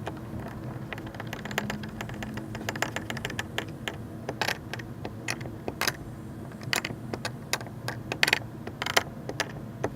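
Irregular clicks, taps and light rattles of hardware and hand tools being worked on a kayak seat's fittings, getting busier and louder about halfway through, over a low steady hum.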